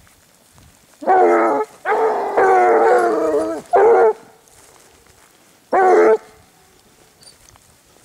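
Grand Basset Bleu hounds baying in four drawn-out bouts, the second the longest: the pack giving tongue as it works the scent of a hare.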